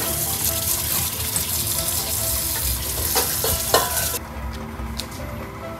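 A fish scaler scraping the scales off an isaki (chicken grunt) under a running tap in a stainless steel sink: a dense, hissing scrape mixed with splashing water. The hiss drops away about four seconds in, leaving a few light clicks.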